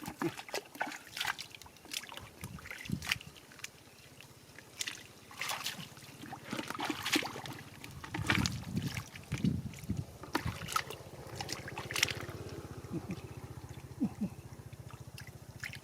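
Water splashing and sloshing in short irregular bursts, with a low steady mechanical hum joining about halfway through.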